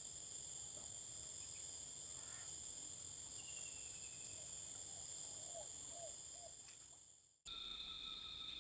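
Faint steady chorus of insects, several high-pitched tones held at once. It fades away about seven seconds in, then a different insect chorus with lower tones starts abruptly.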